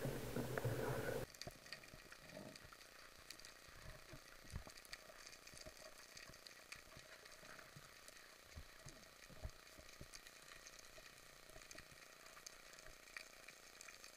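Faint underwater crackling: a steady fizz of many tiny clicks from the seabed, heard through an underwater camera. A louder rushing noise at the start cuts off abruptly about a second in.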